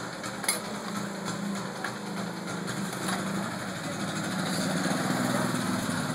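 A small engine running with a steady, fast-pulsing hum that swells louder about four to five seconds in, with a single short click about half a second in.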